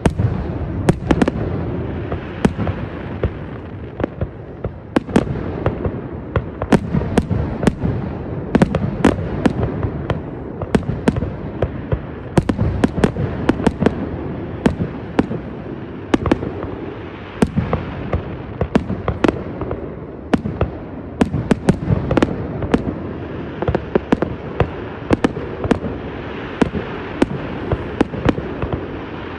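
Aerial fireworks display: a dense, irregular run of sharp shell-burst cracks, several a second at times, over a continuous rumble of launches and crackle.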